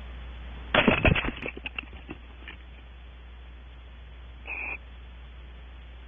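Barn owl landing in a wooden nest cavity: a burst of thumps and claw scrapes on wood about a second in, trailing off in a few scratches. A brief raspy call comes near the end.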